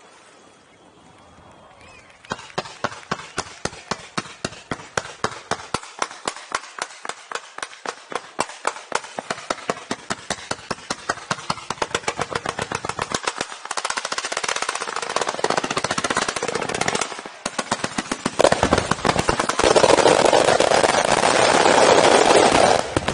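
Fireworks display's closing barrage: after a faint crackle, a rapid even salvo of shots, about four a second, starts a couple of seconds in. It thickens after about fourteen seconds into a dense continuous barrage, loudest near the end, which cuts off suddenly.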